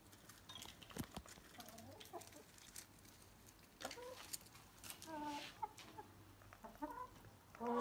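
Domestic hens clucking softly at intervals, short quiet calls, with a few sharp clicks in between.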